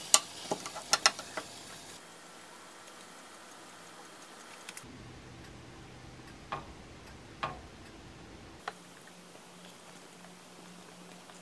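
A metal spatula chopping a rolled egg omelette on a ceramic plate, its edge clicking against the plate several times in quick succession in the first second and a half. After a pause, two or three lighter clinks follow.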